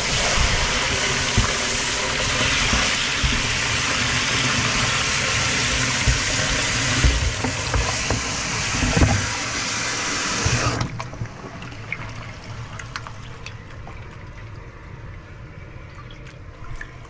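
Water from a garden hose pouring into a polypropylene sieve-filter box: a loud, even rush of splashing water. About eleven seconds in it drops off suddenly to a much quieter run of water.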